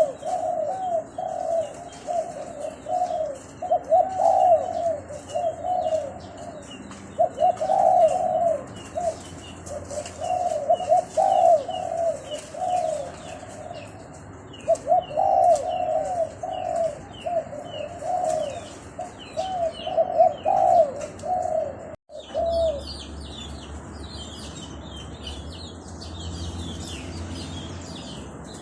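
A dove cooing in repeated phrases of short notes, with small birds chirping higher over it. The cooing stops at an abrupt break about 22 seconds in, after which only the chirping and a low hum remain.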